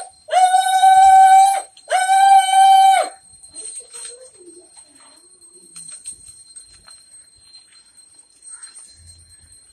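Conch shell blown in two long steady blasts, one right after the other, each dropping in pitch as it dies away, sounded as the Pongal milk pot boils over.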